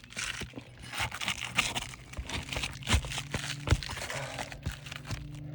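Brittle, aged asphalt shingles crackling and tearing as they are lifted and nails are pried out, with a few sharp knocks. The shingles are so brittle that they rip at the nail holes.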